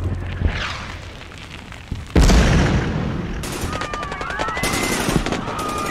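Action-film sound effects: a sudden loud boom about two seconds in with a long rumbling tail, followed by a rapid rattle of sharp cracks, about ten a second, and whistling tones that rise and fall.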